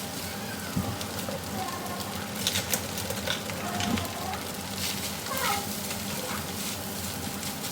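Leftover rice and ground beef frying in a hot wok with a steady sizzle, while a spatula knocks and scrapes against the pan several times as it is stirred.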